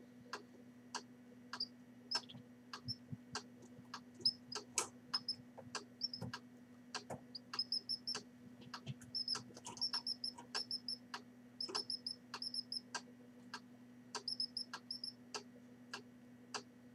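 Newly hatched Fife canary chick begging: thin, high peeps in short quick runs, over a regular ticking a little under twice a second and a steady low hum.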